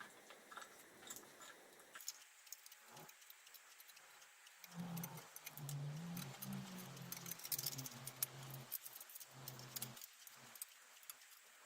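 Small metallic clicks and scrapes as a clamp is worked on a motorcycle front brake caliper to push the pistons back in. From about five seconds in, a low wavering hum runs under the clicks for some five seconds.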